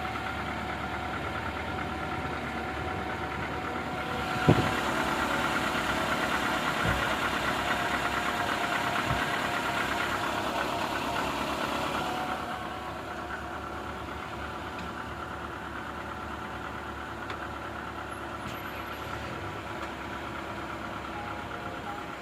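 Renault Logan's 1.6 K7M eight-valve petrol engine running at idle with a knock, just started after a long standstill. It runs louder for several seconds from about four seconds in, starting with a sharp click, then settles back.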